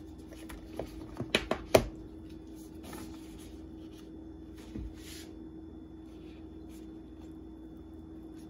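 Kitchen handling sounds: a quick cluster of sharp clicks and taps a little over a second in, then a few soft rustles, over a steady faint hum.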